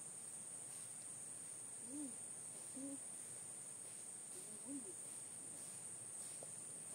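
Steady high-pitched drone of an insect chorus in tropical forest. Three short low calls, each rising and falling, cut through it about two, three and five seconds in.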